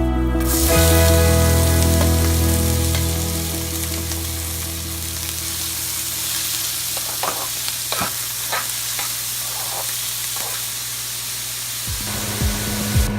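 Ingredients frying in hot oil in a pan, a steady sizzle, with a spatula tapping and scraping against the pan several times in the middle.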